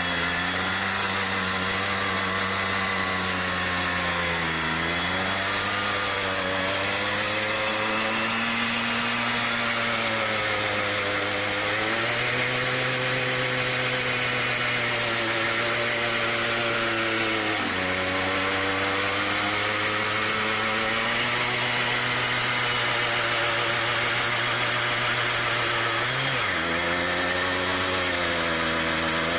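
Simson Star moped's 50 cc two-stroke single revving hard and held at high revs, driving the rear tyre spinning in place for a burnout. The revs dip sharply and climb back three times, about four, eighteen and twenty-six seconds in.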